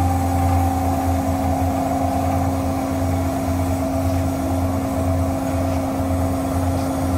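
Hyd-Mech S-20A horizontal band saw running idle with no cut, its blade drive and hydraulics humming steadily. The blade speed is being turned down from about 104 to 85 feet per minute, and one tone in the whine falls slightly in pitch over the first few seconds.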